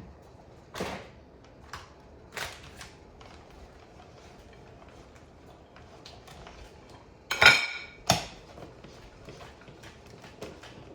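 Kitchen clatter of utensils and dishes: a few scattered knocks, then a louder ringing clink about seven seconds in followed by another knock, and light quick ticks near the end.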